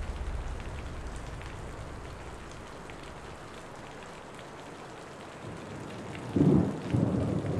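Thunderstorm: steady rain, with a low rumble of thunder dying away at the start and thunder rumbling louder again in bursts near the end.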